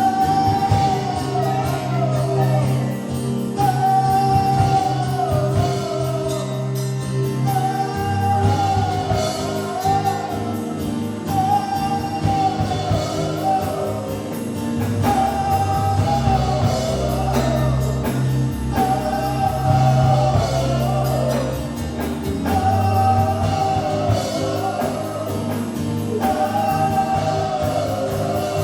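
Live gospel worship music: voices singing a repeated phrase, about every four seconds, over a steady bass and band accompaniment.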